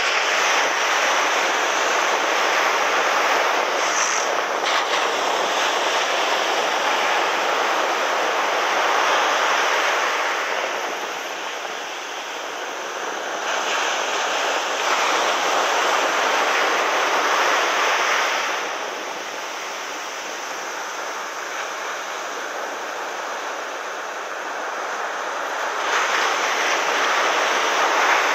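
Ocean surf breaking and washing up a sandy beach: a steady hiss that swells three times as waves wash in and eases between them.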